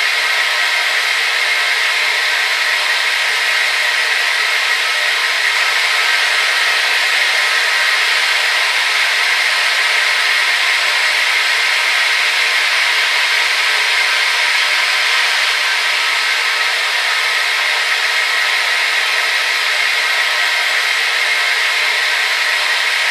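Hair dryer running steadily: an even, unbroken rush of blown air and motor hiss, strongest in the upper middle, with no low rumble.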